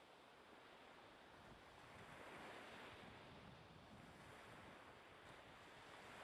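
Near silence: a faint, even hiss that swells slightly a couple of times.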